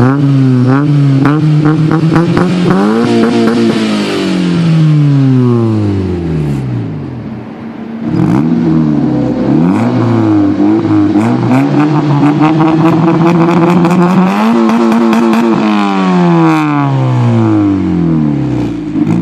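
Honda Civic four-cylinder engine being revved repeatedly through an aftermarket Magnaflow dual exhaust, the pitch rising and falling with each blip of the throttle; the revving eases off about seven seconds in, then starts again and runs on with more blips.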